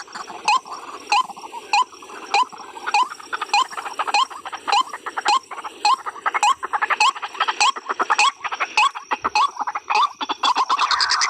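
Calls of a white-breasted waterhen (ruak-ruak): a short rising note repeated very evenly about every 0.6 s, each with a sharp click, over a thin steady high tone. Near the end a dense rasping noise swells up.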